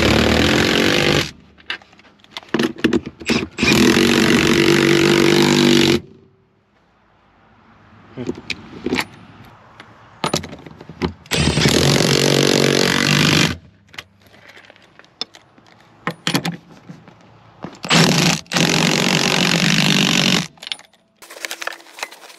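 Cordless power tool running the seat-mount 18 mm nuts down onto the floor studs through an extension and swivel, in four bursts of one to two and a half seconds, with light clicks and scrapes of metal between them.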